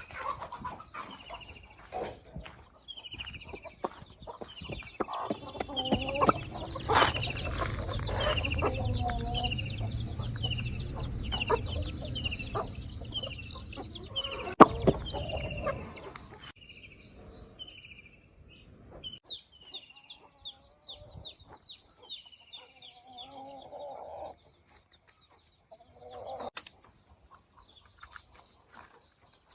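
Chickens clucking, with chicks peeping in short falling chirps about twice a second. There are scattered knocks and clatter, a low rumble through the middle, and a steady high hiss that starts near the end.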